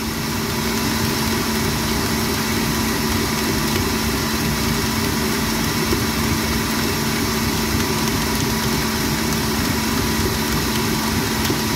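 Planetary stand mixer's motor running steadily, a constant hum with one steady tone, its dough hook kneading a 100%-hydration liquid sourdough starter in a steel bowl. The dough is beginning to come together and pull away from the sides of the bowl.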